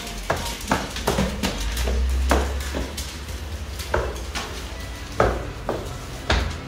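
About a dozen irregular clicks and knocks, like hard objects being handled or bumping, over a low rumble that swells for a second or so near the middle.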